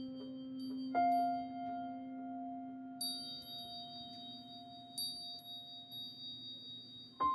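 Slow, sparse music of long ringing chime-like tones: a low note held throughout, a higher note struck about a second in, and bright high chime strikes at about three and five seconds, with a new note struck near the end.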